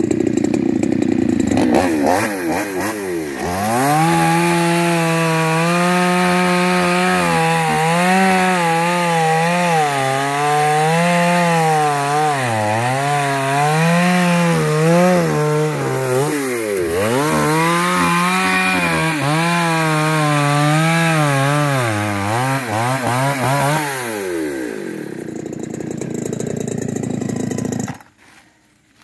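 Chainsaw running at high revs while ripping lengthwise through wood to split it, its pitch wavering and sagging under load several times. It winds down and stops near the end.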